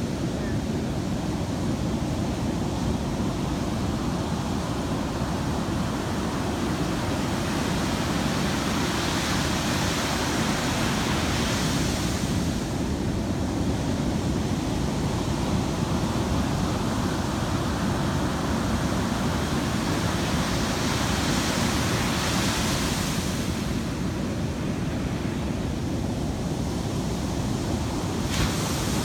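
Heavy ocean surf: large waves breaking into whitewater, a steady wash of noise whose hiss swells up every ten seconds or so as a wave breaks.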